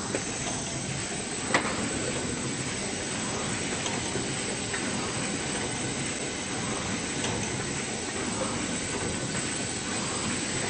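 Automatic bottle screen printing line and its conveyor running, a steady machine hiss and hum with faint ticks, and one sharp click about a second and a half in.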